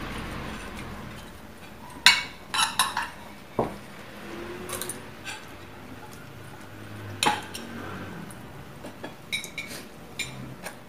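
Metal spoon and fork clinking against plates in scattered sharp clinks. The loudest cluster comes about two seconds in, and a few more clinks come near the end.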